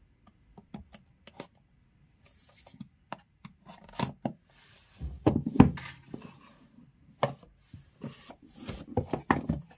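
A small blade scraping and cutting along the sealed edges of a cardboard smartwatch box, with scattered clicks, knocks of the box against a table and rubbing of cardboard as it is turned and opened. A louder cluster of knocks comes about halfway through, and denser scratchy rustling comes near the end.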